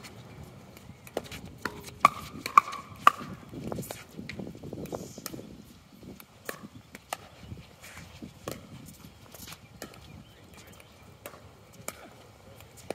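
Pickleball rally: paddles striking a hard plastic pickleball, a string of sharp pops at an uneven pace. The loudest three come close together about two to three seconds in.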